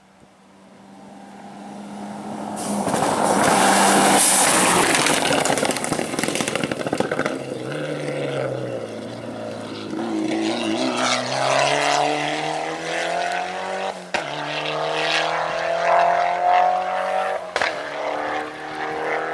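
A rally car on a gravel forest road, approaching and passing loudly about four seconds in with a spray of noise, then its engine revving up through the gears, with the pitch dropping at each of two upshifts later on.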